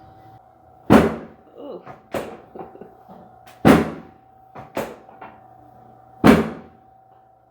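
Heavy thuds and knocks during a chiropractic adjustment: three loud thuds a little under three seconds apart, with smaller knocks and pops between them.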